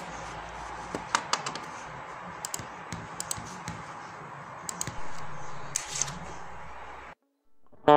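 Steady hiss and low hum from a guitar rig running through a compressor pedal, with no note played, dotted with a dozen or so light clicks and taps. It cuts off suddenly about seven seconds in.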